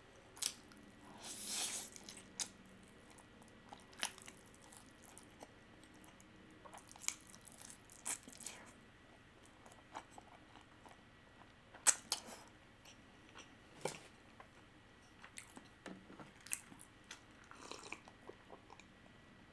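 A person slurping in a mouthful of spicy instant fire noodles about a second in, then chewing them with scattered short, wet mouth clicks.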